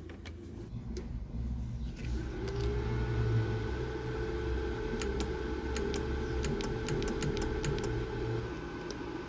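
A steady low electrical hum with a higher whine over it, and a run of small sharp clicks between about five and nine seconds in.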